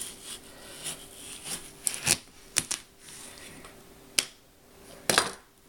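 Kitchen knife cutting through a watermelon's rind, with a rustling scrape and a series of sharp cracks as the rind splits open.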